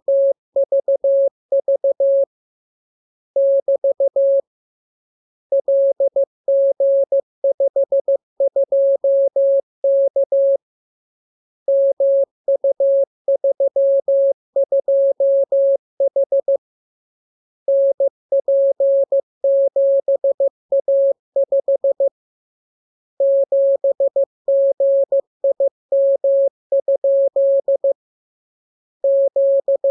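Morse code (CW) sent as a single steady mid-pitched tone keyed on and off in dots and dashes. The characters come in runs a few seconds long, separated by pauses of about a second.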